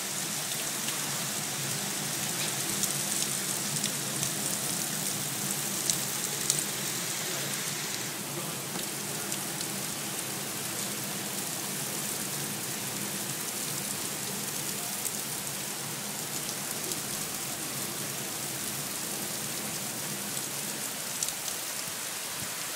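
Heavy rain pouring down in a steady hiss, with scattered sharper drop hits; a few louder hits come in the first several seconds and once near the end.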